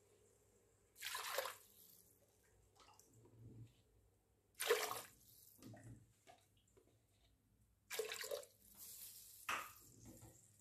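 Cupfuls of water poured into an aluminium pressure cooker onto simmering beef and masala, in about four short splashes a few seconds apart.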